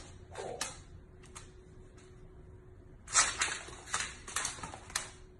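A dog and a puppy play-fighting on a wooden floor: scuffling and the clicks of claws on the boards, with a busier flurry of scrabbling from about three seconds in.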